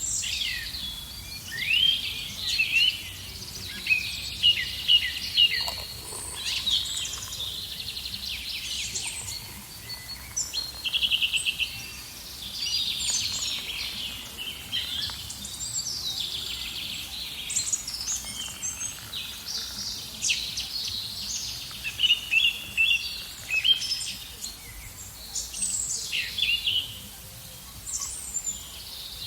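Several songbirds singing and chirping at once, short high calls and phrases overlapping continuously, including a quick trill about eleven seconds in.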